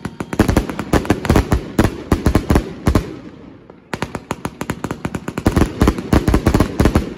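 Triplex XB4100 'Air Force One' fireworks compound cake firing a rapid run of shots and bursts. The bangs pause briefly about three seconds in, then another fast run of bangs follows.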